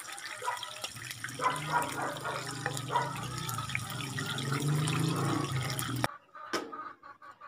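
Diced bell pepper sizzling and crackling in hot oil in a frying pan, with a steady low hum underneath. The sizzling cuts off abruptly about six seconds in.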